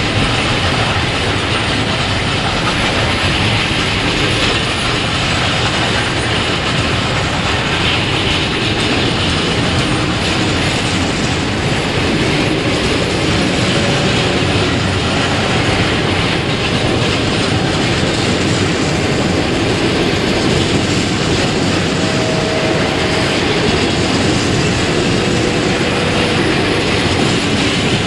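Coaches of a long-distance passenger train rolling past the platform, with a steady noise of wheels on the rails.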